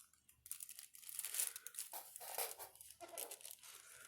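Irregular rustling and crinkling handling noise, scratchy and uneven, starting about half a second in and going on in short bursts.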